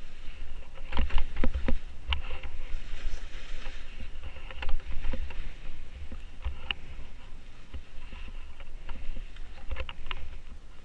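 Skis scraping and hissing through chopped-up snow on a steep descent, with irregular sharp knocks as the skis and poles hit clumps of snow, and a low wind rumble on the camera's microphone.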